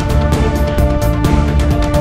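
News channel ident theme music with a steady, driving beat and held tones.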